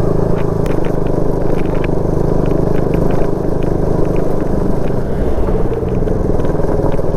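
Motorcycle engine running steadily at road speed over a badly potholed road, with scattered short rattles and knocks as the bike jolts over the holes.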